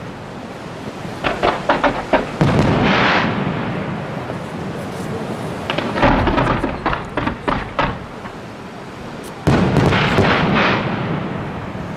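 Aerial fireworks shells bursting in three volleys: about a second in, around six seconds, and just before ten seconds. Each volley is a series of sharp cracks over deep booms that roll and echo away between the volleys.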